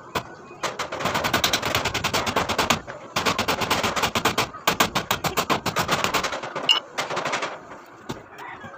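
Claw hammer striking the wooden slats of an old crib in rapid runs of blows, about ten a second, broken by short pauses.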